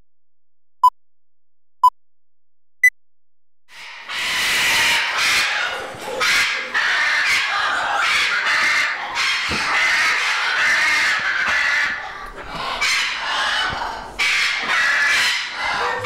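Three short beeps about a second apart and then a higher fourth beep, as on a countdown leader; from about four seconds in, parrots squawk and screech harshly and keep on.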